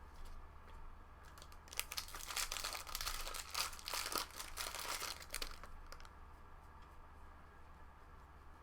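Trading-card packaging crinkling and rustling in the hands for about four seconds, starting about two seconds in, then fading to faint handling sounds.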